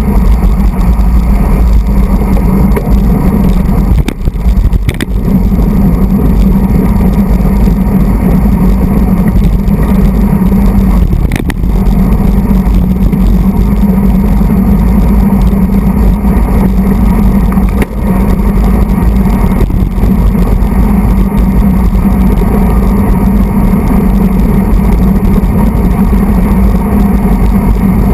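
Steady, loud wind rush buffeting a handlebar-mounted camera's microphone as a road bike rides at race speed in a pack, with a few sharp clicks.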